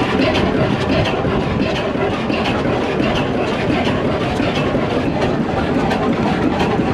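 Large multi-cylinder Industrie stationary diesel engine running steadily, with an even, quick mechanical clatter.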